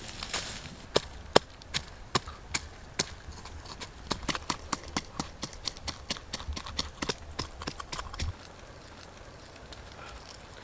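A blade cutting into and scooping out the flesh of a pineapple: a run of sharp crunching clicks, sparse at first and then quick and dense, stopping about eight seconds in.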